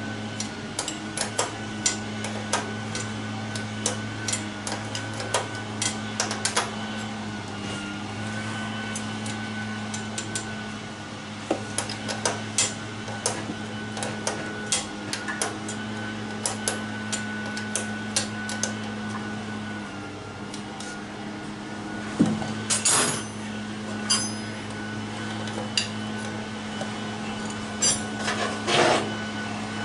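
Hand wrench ticking and clinking against the carburetor's metal fittings as nuts are loosened: many sharp clicks, with a few louder clanks in the last third. Under it runs a steady motor drone from a gardener's machine in the background.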